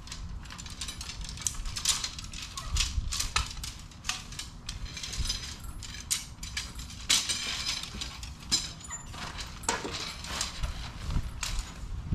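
Irregular clicks, taps and knocks, several a second, like things being handled and moved about, over a low rumble.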